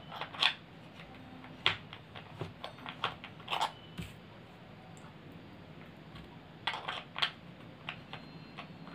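Scattered light clicks and clinks from a Bosch hand blender's stainless-steel blade shaft being handled and twisted against its motor body, in small clusters about half a second in, near two seconds, around three to three and a half seconds, and around seven seconds.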